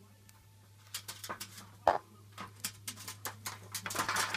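A scattered run of sharp taps and clicks inside a bird cage, with one louder knock about two seconds in and a burst of rustling near the end.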